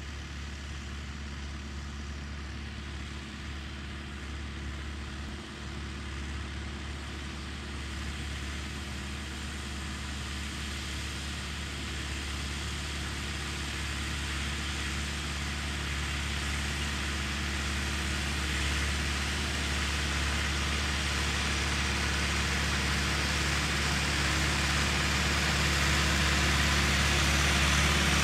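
Massey Ferguson 385 tractor's four-cylinder diesel engine running steadily under load while pulling a tillage implement through dry soil, growing gradually louder as the tractor comes closer.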